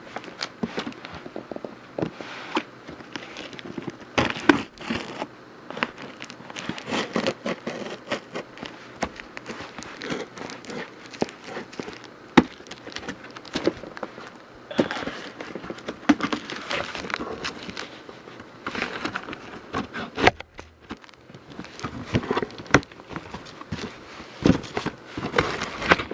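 A shipping package being opened by hand: irregular crinkling and rustling of packaging with scattered clicks and knocks, and a short lull about twenty seconds in.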